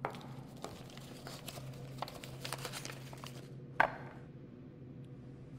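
Paper wrapping being torn and crumpled off a small package, a dense run of rustles and crackles, then one sharp knock just before four seconds in. A faint steady low hum sits underneath.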